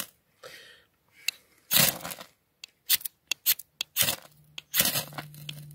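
Knife spine scraped hard down a new ferrocerium rod (fire steel) in a series of short, sharp strikes, several in quick succession past the middle. The strikes throw sparks onto an accelerant-soaked cotton fire plug, which catches.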